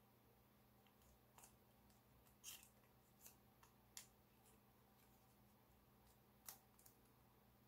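Faint crinkling and clicking of gold foil origami paper being pinched and creased by fingers: a handful of short, sharp crackles spread through, over a faint steady hum.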